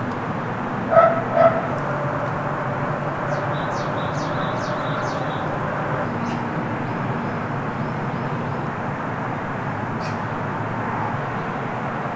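Two short animal calls about half a second apart, about a second in, over steady background noise.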